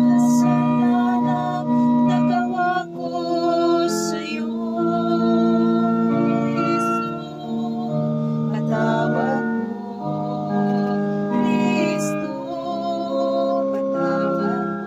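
Slow song: a woman's voice singing long, wavering held notes over sustained accompanying chords.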